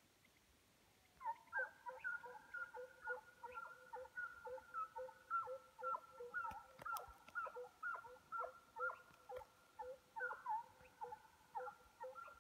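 Faint, distant baying of Russian hounds running game on the scent. It starts about a second in as a steady, overlapping run of short yelps, about two to three a second.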